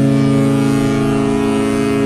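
Disney Magic cruise ship's horn sounding one long, steady, deep blast.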